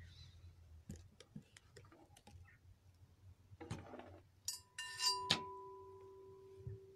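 Small handling clicks and rustles, then about four and a half seconds in a jangle of metal and a strike on a small metal percussion instrument, which leaves two steady ringing tones: the higher dies away after about a second and a half, the lower keeps ringing.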